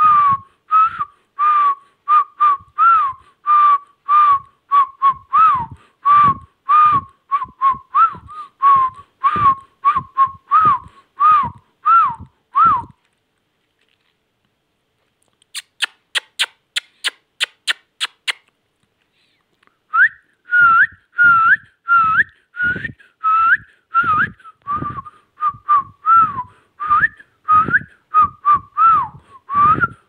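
Repeated short whistled notes, about two a second, each with a slight rise or dip in pitch. The notes stop about 13 seconds in. After a pause comes a short run of quick, very high, sharp chirps, and then the whistling starts again for the last ten seconds.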